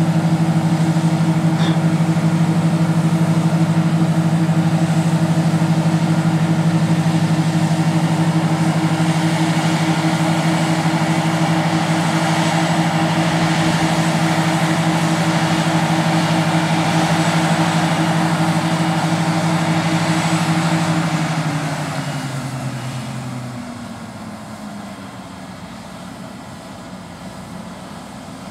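Heavy diesel engines of a Claas Lexion 460 combine harvester and a Deutz tractor running steadily at working speed while the combine unloads grain into the trailer. About 21 seconds in the engine note falls in pitch and the sound drops to a much quieter run.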